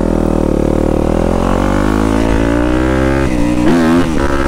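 Yamaha YZ250F dirt bike's single-cylinder four-stroke engine pulling along under throttle, its pitch climbing slowly, then rising and falling a few times near the end as the throttle is worked.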